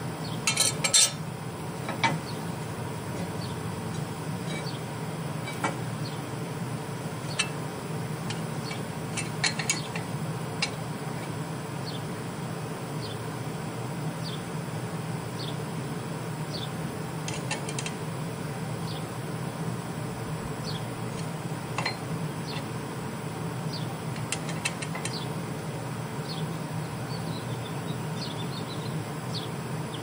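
Sparse metal clinks and taps of steel tools against a steel plate on a forklift fork carriage, with a cluster of louder strikes about a second in. A steady low hum lies underneath.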